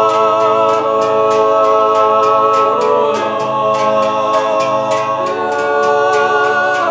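Background music with long held notes over a steady, light percussive beat.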